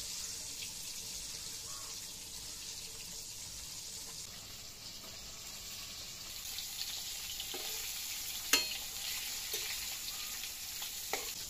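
Hilsa fish sizzling as it fries in hot oil in a metal kadai, a steady hiss. A few sharp clinks of the metal spatula against the pan come in the second half, the loudest about three-quarters of the way through.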